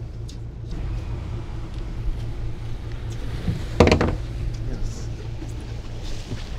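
Fishing boat's engine running with a steady low hum, and a brief loud knock about four seconds in.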